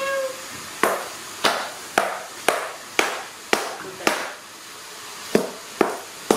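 Sharp, evenly spaced knocks, about two a second, ten in all, with a pause of about a second before the last three. A short rising call sounds at the very start.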